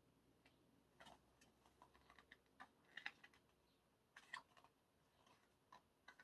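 Faint, scattered taps and clicks of paper album photos being handled, with a couple of slightly louder ones about three and four seconds in.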